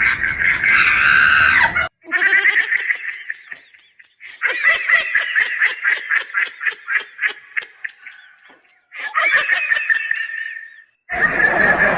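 Music stops abruptly about two seconds in. Then comes a shrill, bird-like call repeated in quick pulses, about four a second, in three bouts separated by short silences.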